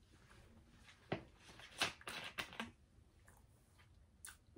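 Faint close-up chewing and mouth sounds: a few short, soft smacks and clicks, busiest around the middle.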